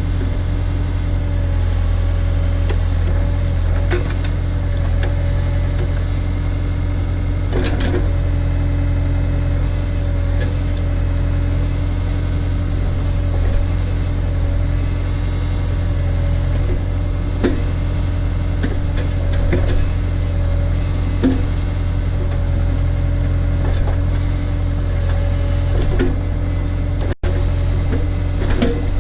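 Case/Davis D100 backhoe's engine running steadily while it works, with a few short knocks from the machine at irregular moments. The sound cuts out for an instant near the end.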